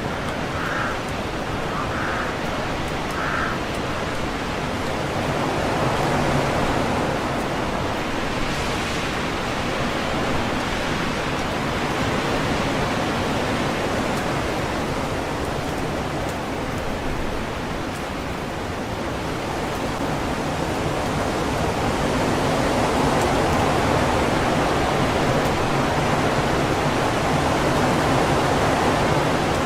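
Strong wind rushing through trees and shaking the leaves: a continuous rush that swells and eases in gusts and grows louder near the end. A few short calls sound in the first few seconds.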